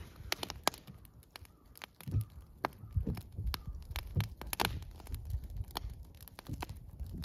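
Wood fire crackling in a fire pit: scattered sharp snaps and pops, with a few dull low thumps mixed in.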